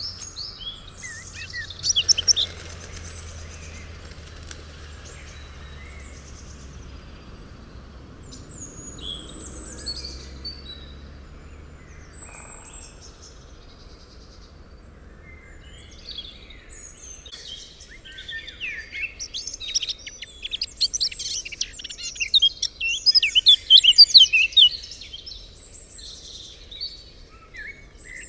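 Several songbirds chirping and singing, with a dense run of rapid trills about two-thirds of the way through, over a faint low rumble in the first half.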